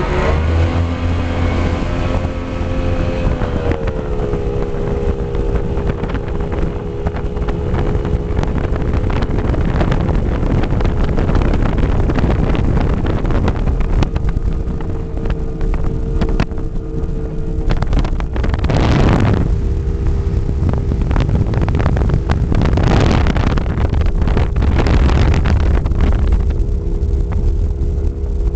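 Mercury OptiMax 300XS outboard, a V6 two-stroke, running at speed on a tunnel-hull boat, its engine note settling slightly lower about four seconds in and then holding steady. Heavy wind noise on the microphone runs underneath, with two louder rushes of wind about two-thirds of the way through.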